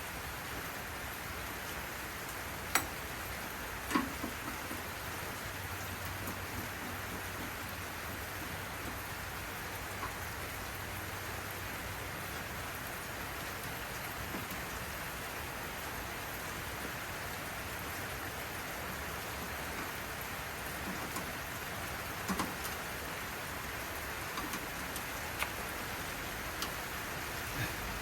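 Heavy rain pouring down steadily, described as really pouring. A few sharp clicks and knocks stand out over it, the loudest about three and four seconds in and a cluster near the end.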